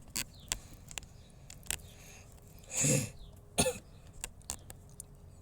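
A person clearing their throat once, about three seconds in, with scattered light clicks around it.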